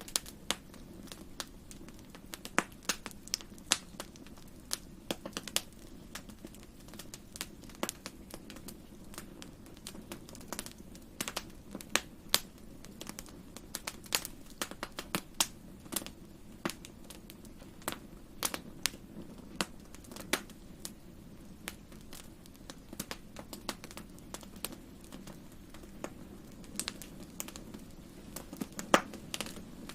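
Wood fire crackling in a fireplace: irregular sharp pops and snaps, several a second at times, over a steady low rush of the burning fire.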